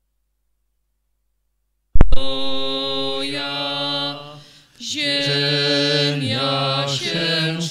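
Singing of a Polish Easter hymn in church, cutting in abruptly with a loud click about two seconds in after silence, with long held notes and a short break about halfway through.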